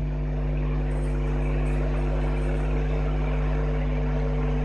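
A steady low machine hum: a deep drone with several unchanging tones over it, running evenly without a break.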